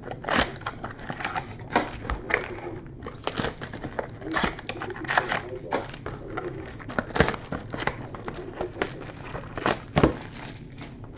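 Plastic wrapping and card packs crinkling and tearing as sealed trading-card boxes are opened, with irregular sharp rustles and clicks from handling.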